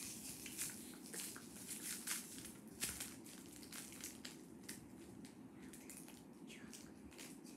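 Crinkling of a cellophane candy wrapper being twisted and pulled open by hand: quick, irregular crackles, busiest in the first few seconds.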